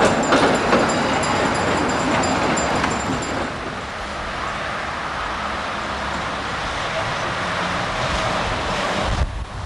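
Articulated electric tram passing close by on street rails: steady rumble and rushing of steel wheels on the track, with faint thin high squeals, for about the first three seconds. It then gives way to quieter steady street noise with a low rumble.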